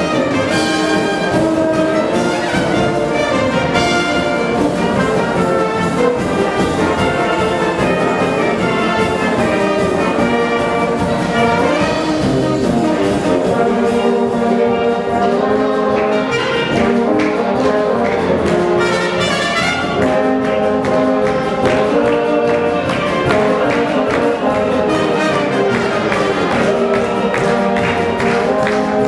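Amateur wind band playing a tune: flute and clarinets over brass, with horns and tubas, in a steady ensemble sound.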